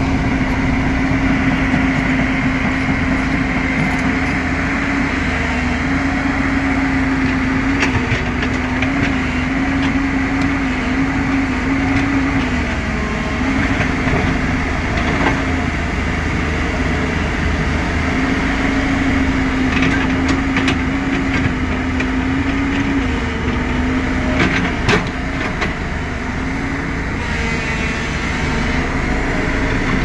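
JCB 215LC tracked excavator's diesel engine running steadily as it digs, its pitch dipping and recovering slightly several times as the hydraulics take load, with a few short knocks.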